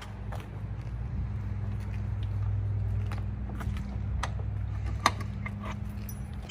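Scattered metallic clicks and rattles from a boat trailer's hand winch and its strap hook as the winch strap is worked loose from the jet ski's bow eye, with the sharpest click about five seconds in, over a steady low hum.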